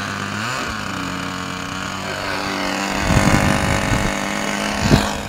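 Small single-cylinder engine of a radio-controlled model airplane running at idle; its pitch steps up slightly about half a second in and then holds steady. From about three seconds in, low rumbling and a few thumps come over it as the plane is handled.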